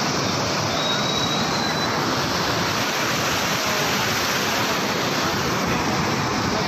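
Floodwater rushing in a steady, unbroken stream of noise, with no let-up or change in level.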